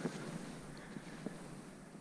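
Two soft footsteps on bare sandstone, a little over a second apart, under light wind noise on the microphone.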